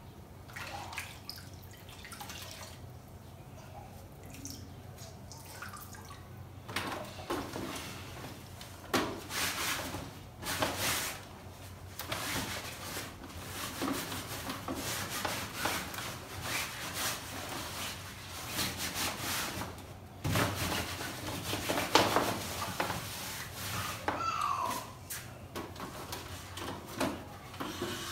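Wet cloth wrung out over a basin of water with dripping, then rubbed in irregular wiping strokes over the fabric and plastic of a baby swing bassinet seat, with an occasional knock.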